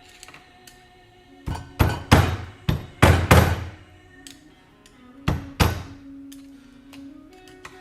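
Small mallet striking a screwdriver to drive an old oil seal out of an oil pump housing: about eight sharp, ringing taps in three quick groups, the loudest about two and three seconds in. Faint background music runs underneath.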